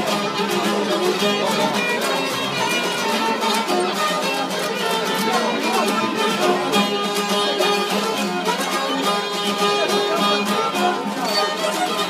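Albanian folk music played on two long-necked plucked lutes, a sharki and a çifteli, in a quick, busy tune with no singing.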